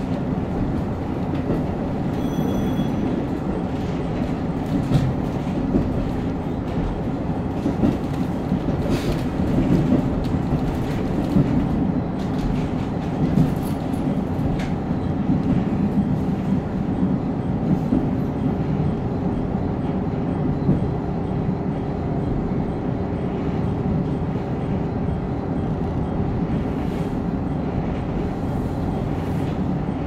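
KiHa 54 diesel railcar running along the track, heard from on board: a steady low rumble with occasional clicks from the wheels. A steady hum joins about two thirds of the way through.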